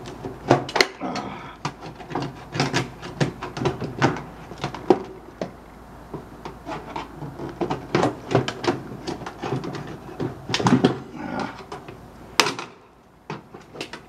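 A screwdriver working a safety screw in a microwave oven's sheet-metal cabinet, with irregular metallic clicks, scrapes and rattles as the casing is handled. There is a sharp knock near the end.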